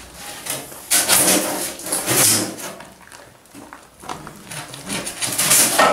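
Sharp knife cutting through a polystyrene foam insulation board, scraping in two spells of strokes.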